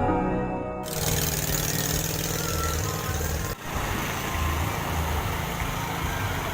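An engine running steadily under a loud rushing noise, cutting in abruptly just under a second in, with a brief break about three and a half seconds in.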